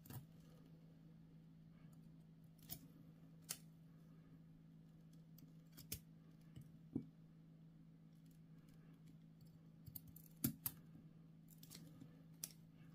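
Near silence broken by scattered faint, sharp clicks of steel surgical instruments: the needle holder's ratchet locking and releasing and the jaws and forceps tips touching as a continuous suture is placed. A low steady hum sits underneath.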